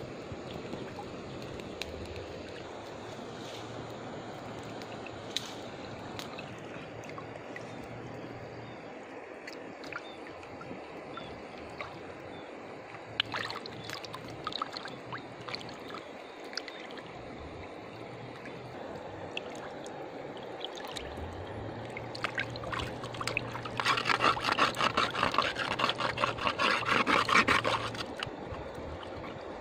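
Hands splashing and sloshing pig ears in shallow river water, with a steady trickle of water and small splashes. Near the end comes a louder stretch of several seconds of quick, rapid splashing.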